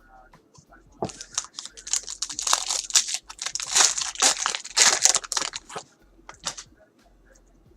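A trading-card pack wrapper being torn open and crinkled by hand, a dense run of crackling and tearing from about a second in to about six seconds, with a few last crinkles just after.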